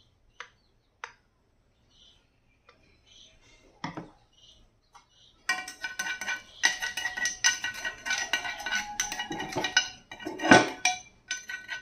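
A metal spoon scraping and clinking in the hollows of an unniyappam (appe) pan, a rapid clatter starting about five and a half seconds in, with one louder knock near the end. Before that there are only a few light clicks and a knock.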